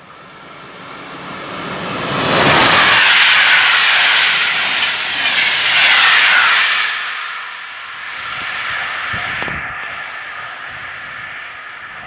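EIC Panorama express train passing through the station. The rush of its coaches builds, stays loud for about five seconds as they go by, then fades as the train draws away.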